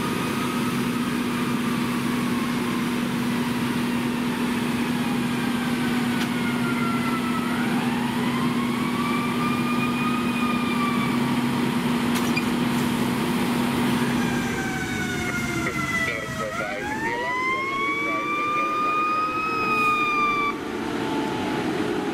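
Fire apparatus siren wailing, each sweep climbing quickly and sliding slowly back down. It is faint at first, then much louder from about two-thirds of the way in as a fire engine approaches. A steady engine hum from the parked fire trucks runs under the first two-thirds and stops about 14 seconds in.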